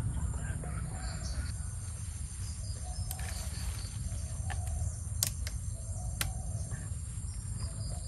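Wind buffeting the microphone with a steady low rumble, over birds calling in the trees and a constant high insect drone. Two sharp clicks come about five and six seconds in.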